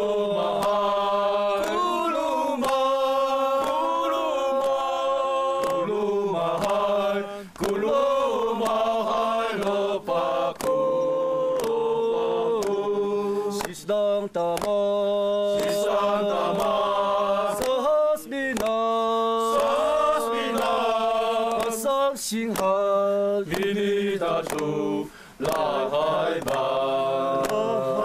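A voice singing a slow Atayal-language song about going home, in long held phrases with short breaks between them, over a steady low drone.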